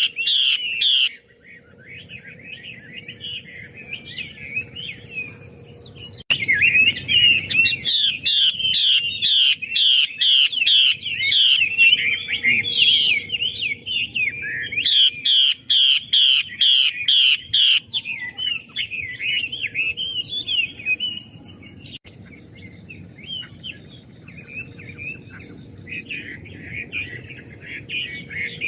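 Female Chinese hwamei singing a fast, varied song of whistled and chattering notes, with quick rattling phrases repeated about twice a second in the loud middle stretch and quieter singing near the end.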